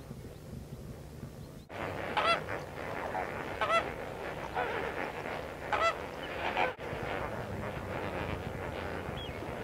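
A large flock of flamingos calling: a dense chorus of goose-like honks with a few louder honks standing out, starting abruptly about two seconds in.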